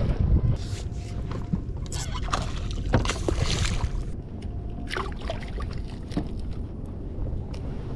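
Spinning reel being cranked, then a hooked queenfish splashing and thrashing as it is hauled from the water beside an inflatable boat. Water sloshes against the boat, with a low rumble of wind on the microphone, strongest at the start.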